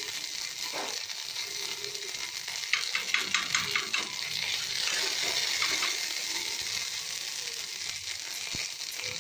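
Ginger paste with ground spices sizzling and spluttering in hot oil in a metal pan, a steady frying hiss with a quick run of crackles about three seconds in. The pan is hot enough that the ginger is spluttering hard.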